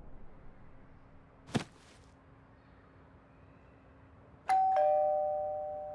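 A single short click about a second and a half in, then a wall-mounted intercom doorbell pressed, chiming a two-note ding-dong, a higher note then a lower one, that fades away slowly.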